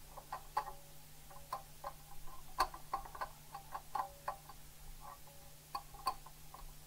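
Small precision screwdriver turning a screw into a plastic model part: irregular ticks and clicks with short squeaks as the screw turns in the plastic.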